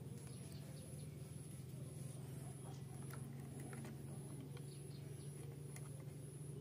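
Faint small clicks and taps of fingers working a throttle cable end into a brush cutter's carburetor linkage, over a steady low hum and a faint high-pitched chirp pulsing about twice a second.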